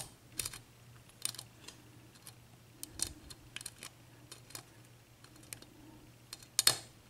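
Lock pick clicking irregularly against the serrated pins inside a Dorma 7-pin mortice cylinder during single-pin picking, over a faint steady low hum. A quick cluster of louder clicks comes near the end.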